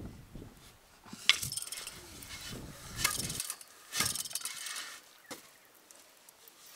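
Wooden weaving sword being worked through the yak-hair warp of a ground loom: three rustling, scraping strokes, the first with a sharp click about a second in.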